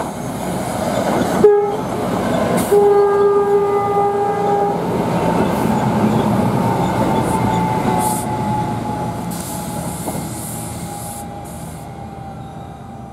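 NJ Transit Arrow III electric multiple-unit train passing close by, sounding its horn: a short blast about a second and a half in, then a longer one of about two seconds. The rumble of the cars and wheels on the track swells as the train goes by and fades near the end as it moves away.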